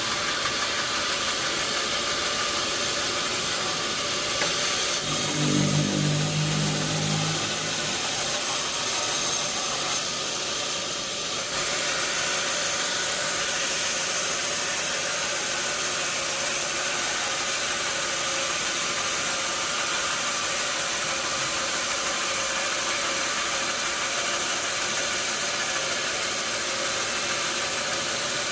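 Sawmill machinery running steadily with a continuous hiss and hum, and a brief low pitched sound about six seconds in.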